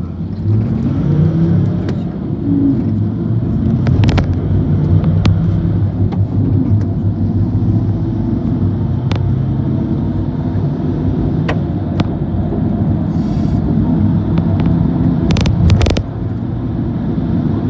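Engine and road noise of a moving vehicle, heard from inside as it drives: a steady low drone, with a number of sharp knocks and rattles scattered through.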